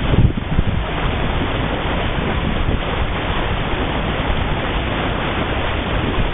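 Wind buffeting the microphone over the steady rush of water and spray along the hull of a small sailboat planing at about 15 knots. There is a louder gust just after the start.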